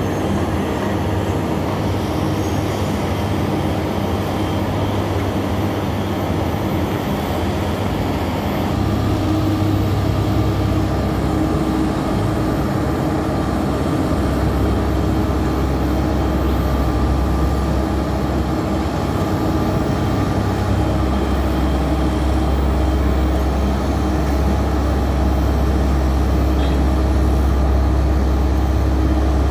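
Heavy engine of a road-construction vehicle running steadily, its low note shifting a few times as the engine speed or load changes.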